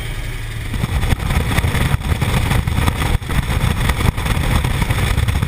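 Aircraft engine drone, joined about a second in by a rough, gusty rush of wind buffeting the microphone.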